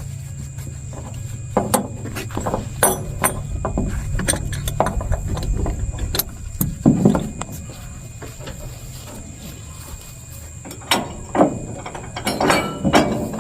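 Engine running steadily under irregular metallic clicks and clanks.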